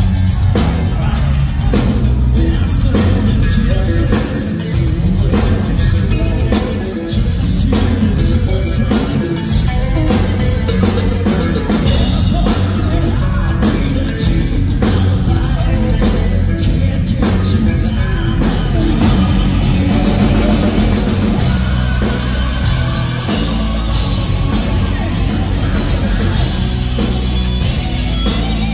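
Hard rock band playing live at full volume: drum kit, distorted electric guitars and a male lead singer, as heard from the audience.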